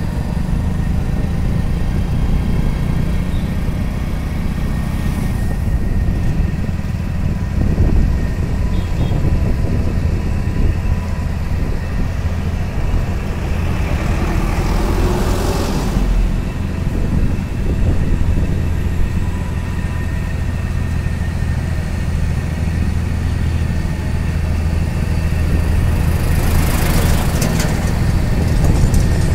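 Motorcycle engine running steadily while riding, a low drone mixed with road and wind noise. Two louder rushes of noise come as other vehicles go by: a truck and a bus about halfway through, and another motorcycle near the end.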